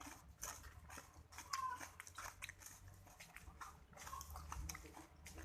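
A person chewing raw kencur (aromatic ginger) root, with faint, irregular crunches and wet mouth clicks.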